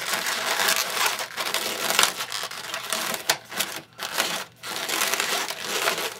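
Inflated latex twisting balloons squeaking and rubbing against each other as they are pushed together and twisted by hand, with two short lulls around four seconds in.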